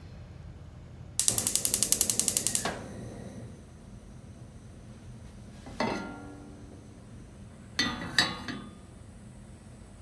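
Gas hob's spark igniter clicking rapidly for about a second and a half until the burner lights. Then a metallic knock with ringing about six seconds in, and a double clank near eight seconds as a stainless-steel saucepan is set on the cast-iron grate.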